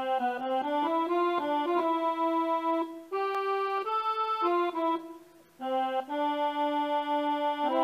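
Intro music: a melody of held notes on an electronic keyboard, with a short break a little past halfway.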